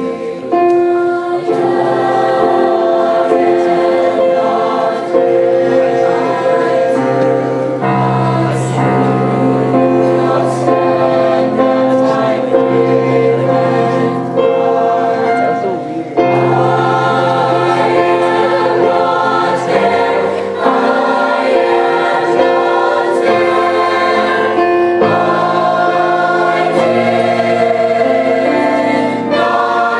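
Mixed choir of teenage boys' and girls' voices singing together, holding long chords that change every second or two.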